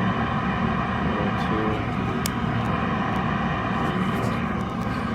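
Lennox gas furnace running: a steady, even mechanical roar.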